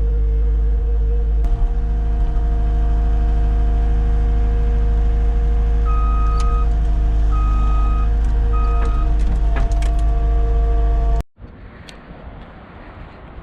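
Skid steer's diesel engine running steadily under load, its backup alarm beeping three times about halfway through, with a few clanks. It cuts off abruptly about eleven seconds in, giving way to a much quieter hiss.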